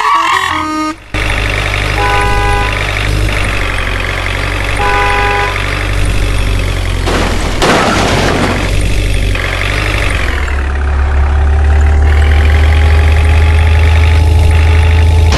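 Heavy truck engine running with a steady low rumble, with two short horn honks about two and five seconds in, then the engine tone rising slowly as it revs in the second half.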